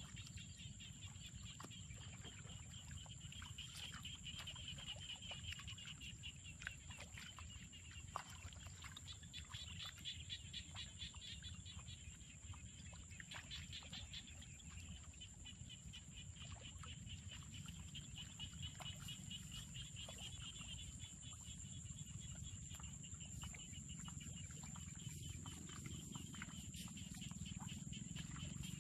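Faint outdoor animal chorus: a rapid pulsing high trill that swells and fades several times, over a steady high-pitched whine and a low rumble.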